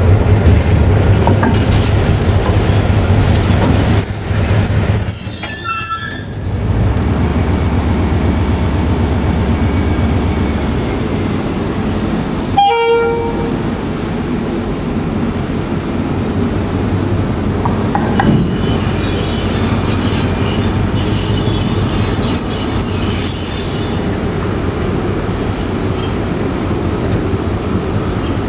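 NIR 111 Class GM diesel locomotive running under load while shunting a rake of spoil wagons, with thin high wagon-wheel squeal on and off. A short horn toot comes about halfway through.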